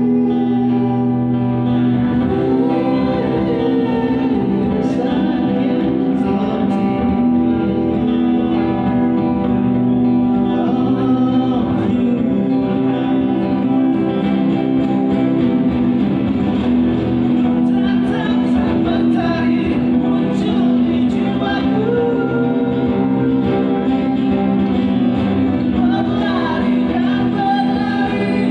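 Live acoustic duo performing: two acoustic guitars strummed with male singing through a PA, playing continuously.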